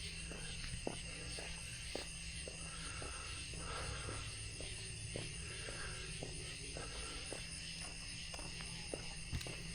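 Footsteps of a person walking at a steady pace, under a steady chorus of night insects trilling at several high pitches.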